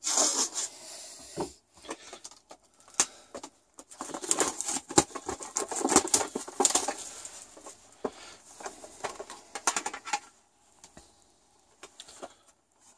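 Plastic wrapping being slit and pulled off a metal DVD tin: crinkling and rustling, broken by sharp clicks and knocks as the tin and the DVD cases inside are handled.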